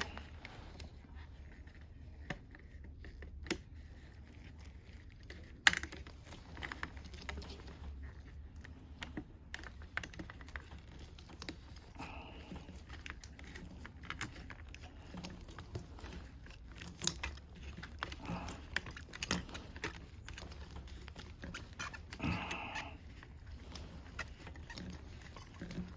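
Scattered small clicks and taps of hands working on a plastic Shark vacuum hose, with two brief scraping sounds about halfway through and near the end, over a faint low hum.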